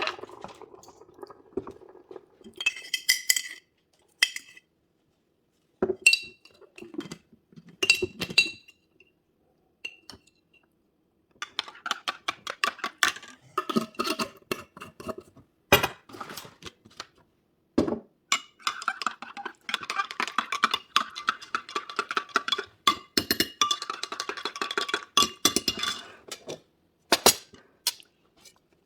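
Tableware clinking: a series of light taps and scrapes of utensils against dishes, some with a short bright ring, broken by a few silent gaps.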